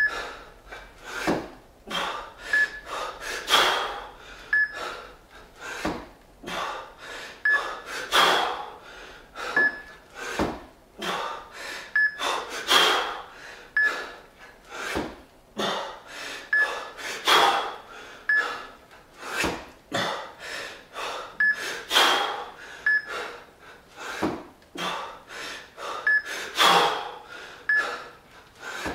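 Hard, rhythmic breathing of a man doing two-arm kettlebell jerks with two 20 kg kettlebells, with a sharp forceful breath burst about every four and a half seconds as each rep is driven up. Short high beeps repeat in the background throughout.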